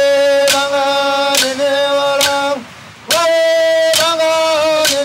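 A man singing an Aboriginal ceremonial chant in long held notes, with boomerangs clapped together about once a second. The voice breaks off briefly a little past halfway, then comes back on a new held note.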